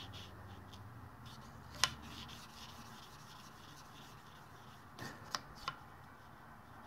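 Quiet handling of metal engine parts as a crankshaft bearing and its shims are worked off the crank: faint rubbing, one light click about two seconds in and three quick clicks near the end.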